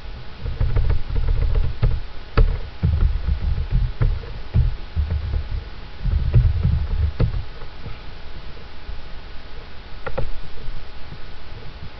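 Scattered computer keyboard and mouse clicks as a file path is typed into a file browser, under a louder irregular low rumble on the microphone that comes and goes and dies away after about seven seconds.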